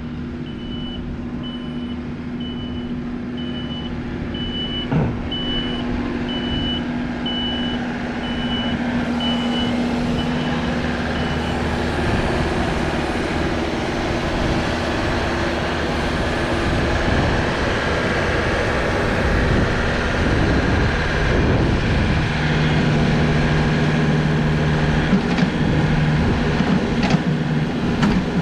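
Front-end loader working compost: its engine runs steadily under load while a reversing alarm beeps about one and a half times a second for the first eleven seconds or so. There is a sharp knock about five seconds in, and the engine works harder and its note drops lower in the last few seconds as the scoop is taken.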